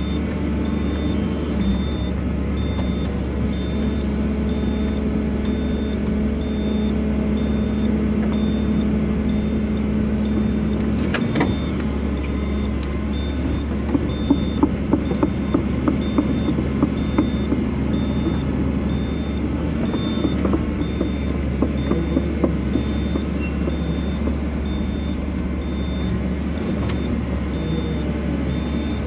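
Excavator engine running steadily, heard from inside the cab, with a high beep repeating about once a second throughout. A sharp knock comes about eleven seconds in, followed by a stretch of light clicks and knocks.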